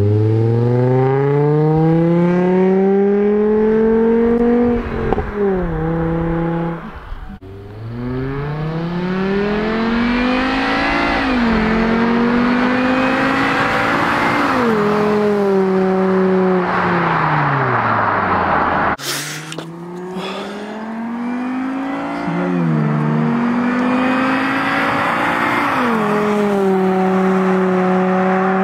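2007 Volvo C30 2.4i's inline five-cylinder engine through a straight-through muffler with the rear resonator deleted, accelerating through the gears. The pitch climbs, then drops sharply at each shift, and twice holds steady. The sound breaks off abruptly twice.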